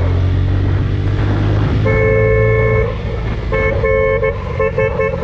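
Vehicle horn in traffic over a running motorcycle engine: one long blast about two seconds in, a couple of short beeps, then rapid short honks near the end.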